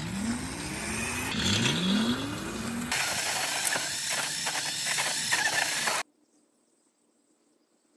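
Homemade 72-volt electric trike's motor whining up in pitch twice as it accelerates. About three seconds in, its rear tyre spins in loose dirt with a noisy spray of dirt. The sound cuts off suddenly about six seconds in to near silence.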